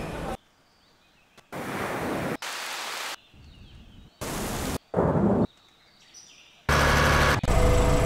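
Short ambient sound-effect previews from Lumion's sound library, played one after another, each cut off abruptly after about half a second with near silence between them. They include a thunder rumble and, near the end, a car engine idling.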